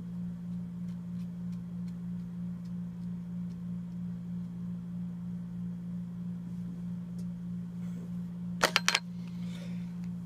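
A steady low hum throughout, with faint ticks and a quick cluster of sharp clicks near the end.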